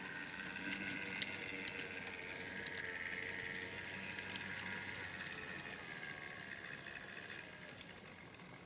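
Large-scale model train rolling past on the track: a steady whir with a hiss, and a few sharp clicks from the wheels in the first second or so, slowly fading as the train moves away.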